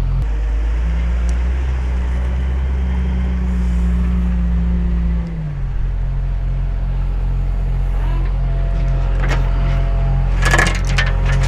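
Wheel loader's diesel engine running close by, its pitch rising about half a second in and settling back down about five seconds in. A few sharp metallic clinks come near the end.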